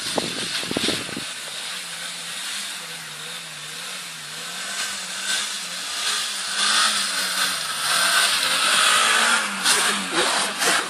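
Suzuki Grand Vitara's 2.0-litre 16-valve engine revving with a wavering note as the 4x4 spins circles in snow, over a steady hiss of its BF Goodrich mud-terrain tyres throwing up snow. It gets louder over the last few seconds as it comes close.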